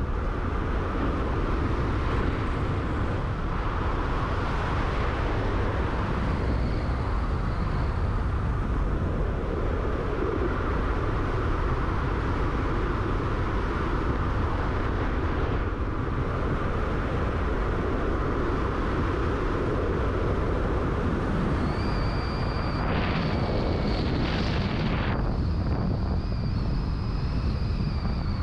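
Steady road and engine noise of a car driving. A thin high-pitched whine comes in near the end.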